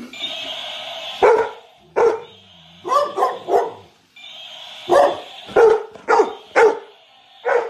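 Large dog barking about ten times in loud single barks, with one quick run of three, at a walking toy dinosaur. A steady noise from the toy runs at the start and in the longer gaps between barks.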